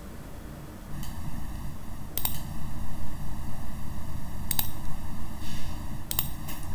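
Computer mouse clicks, three short sharp ones a second or two apart, over a steady low rumble of background noise that grows louder about two seconds in.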